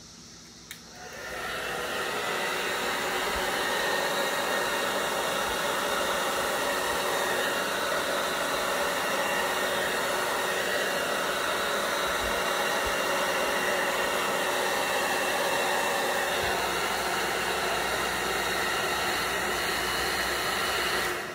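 Handheld hair dryer blowing steadily, blasting air across wet poured acrylic paint to spread it outward. It switches on about a second in and cuts off at the very end.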